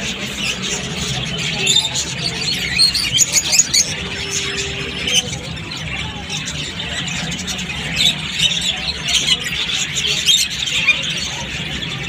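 Many caged birds chirping and squawking at once, a continuous din of shrill, overlapping calls.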